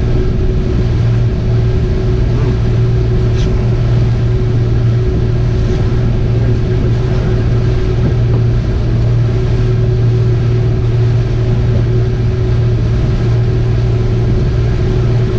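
Boat engine running steadily underway, an even drone with a constant low hum and a higher steady tone.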